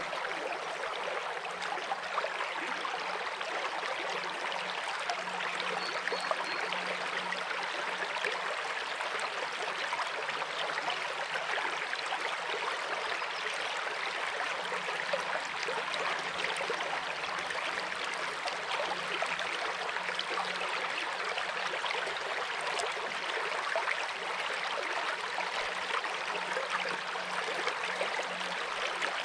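Shallow brook water running steadily over rocks in a riffle, heard close up.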